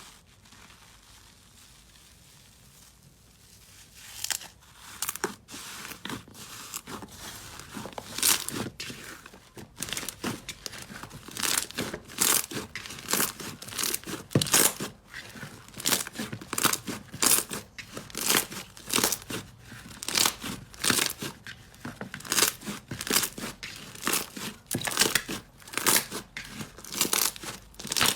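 Slime being squeezed and pressed close up, giving a run of sharp crackles and crunches, several a second, starting about four seconds in after a quiet start.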